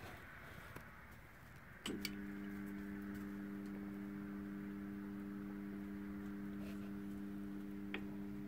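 Soft hen murmuring, then a click about two seconds in as a device switches on and hums steadily at a low pitch; another faint click comes near the end.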